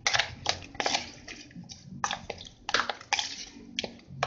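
Raw mutton pieces being mixed by hand in a plastic bowl to work in vinegar, ginger-garlic paste and spices: an uneven run of short wet smacks, about three a second.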